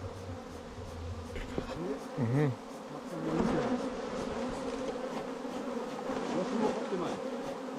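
Many honey bees buzzing in the air around a cut-out wild hive: a steady hum, with single bees passing close, their pitch sliding up and down. The bees are still clustering back onto the limb while they are being smoked off it.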